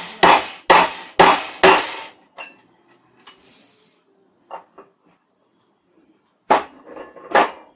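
Hammer blows on a steel jumper driving the old lower bearing out of a ceiling fan motor: a quick run of four sharp metallic strikes in the first two seconds, a few light taps, then two more hard strikes near the end.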